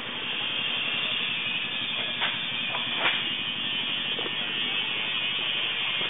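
Steady hiss of background noise, with two sharp clicks about two and three seconds in.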